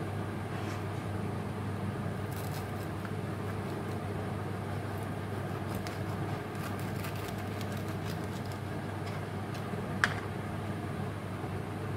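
Knife crunching through the crisp fried crust of a bread fritter on a plastic cutting board: scattered small crackles through the middle, and one sharp knock of the blade on the board near the end. A steady low hum runs underneath.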